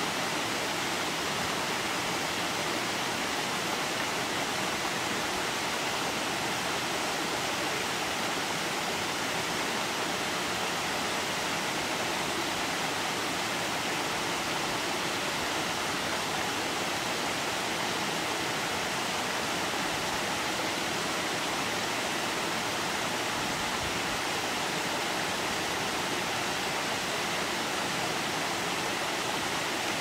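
Small waterfall cascading over rocks: a steady, unbroken rush of water.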